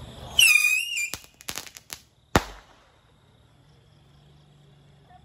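Firecrackers going off: a loud wavering whistle lasting about half a second, then a few sharp cracks and one loud bang about two seconds in.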